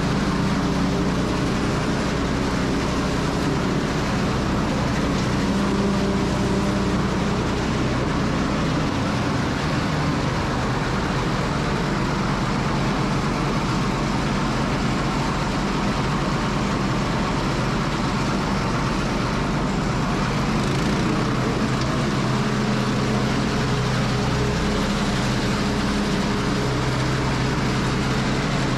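Small bedding chopper running steadily and shredding straw, its motor drone under the dense noise of straw being chopped.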